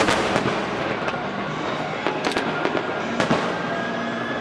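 Aerial fireworks shells bursting: sharp bangs right at the start, just past two seconds and about three seconds in, with crackling in between.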